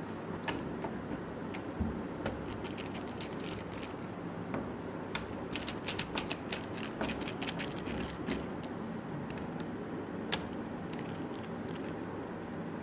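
Small metallic clicks and ticks of a screwdriver working the screws out of a door handle and lock. The clicks come irregularly, with a quick run of them around the middle.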